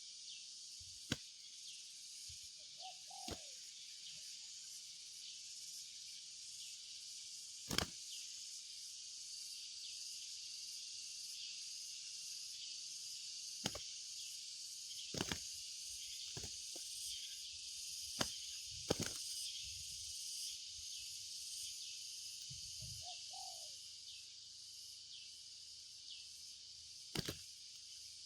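Steady high-pitched insect chorus of crickets, with scattered sharp clicks and two short mid-pitched calls, one about three seconds in and one near the end.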